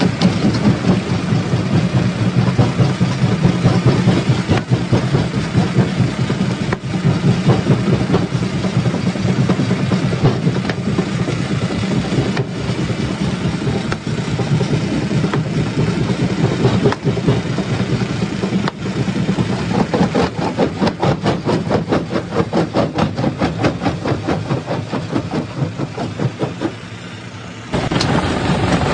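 Rock crusher machine running: a steady, heavy mechanical drone with a fast, even pulsing in the later part. The sound drops briefly near the end, then comes back suddenly.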